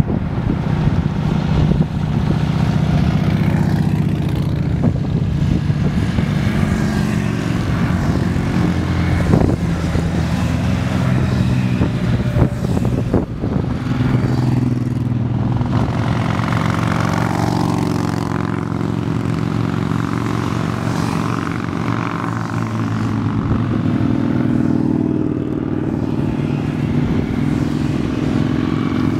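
A long column of motorcycles riding past one after another, their engines running steadily.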